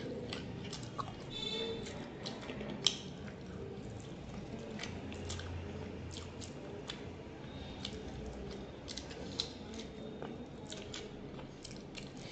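Close chewing and wet lip-smacking of someone eating curry-coated chicken and rice, with many short sharp mouth clicks, the sharpest about three seconds in.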